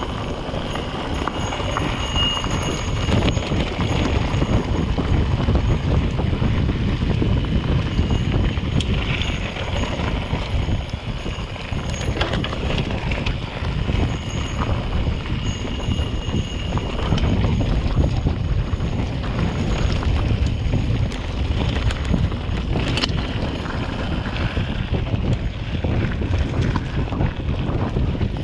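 Wind buffeting the microphone of a handlebar-mounted camera, with tyres crunching and the bike rattling over loose gravel as a mountain bike descends at speed.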